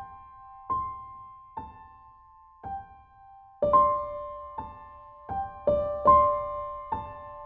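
Background music played on a piano-like keyboard: single notes struck slowly and left to ring. About halfway through, the notes come quicker over a second, lower note.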